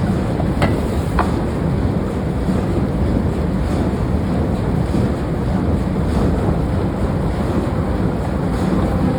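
Steady, loud roar of forging-shop machinery with no hammer rhythm, and two short metallic clinks about half a second and a second in.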